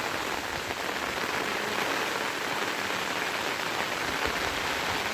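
Steady rain falling, the drops striking surfaces in a dense, even hiss.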